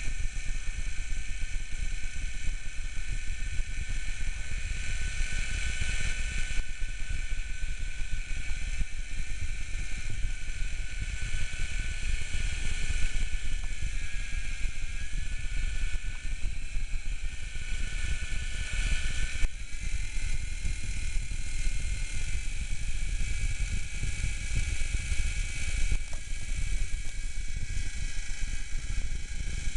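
Small toy remote-control helicopter's electric motor and rotors whirring steadily, with a high whine whose pitch shifts a few times as the throttle changes.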